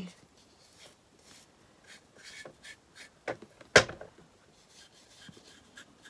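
Light scraping strokes of a paintbrush on wood as a liquid stain is brushed on, with scattered soft taps. A single sharp tap just past halfway is the loudest sound.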